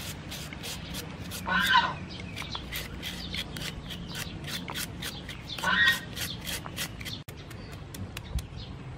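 Hand julienne peeler scraping down a carrot in quick repeated strokes, about three to four a second, shredding it into strands; near the end it shreds a cucumber the same way. A bird calls briefly twice, about two seconds in and again about six seconds in.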